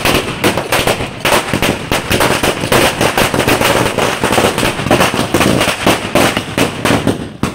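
A long string of red paper firecrackers going off in a rapid, unbroken stream of sharp bangs.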